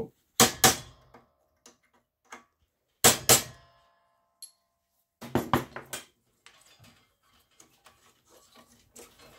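A hammer striking a steel pin punch against the upper feed wheel shaft of a Better Pack 555eS tape dispenser: sharp metal-on-metal taps in pairs, about half a second in and again around three seconds, then a quicker run of strikes a little past the middle. Faint clicks and rattles follow as the loosened shaft is worked free by hand. The shaft is stuck and slow to come out.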